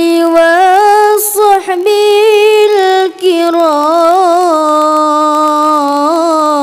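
A single voice singing an Islamic sholawat unaccompanied, with no frame drums. The line is slow and free-rhythmed, with long held notes ornamented by wavering melismatic runs. It breaks briefly for breath about a second and a half in and again about three seconds in.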